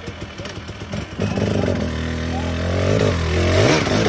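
Husqvarna dirt bike engine running at low throttle with an even low pulse, then revving up sharply about a second in as the bike climbs a wet rocky trail, its pitch climbing for a couple of seconds and dipping briefly near the end.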